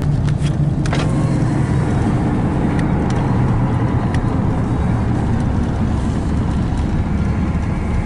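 Car driving, its engine and tyre noise heard from inside the cabin as a steady low rumble, with a few faint clicks in the first second or so.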